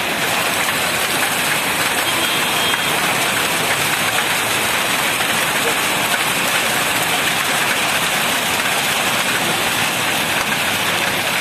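Hailstorm: heavy rain and hailstones pelting hard ground in a dense, steady hiss.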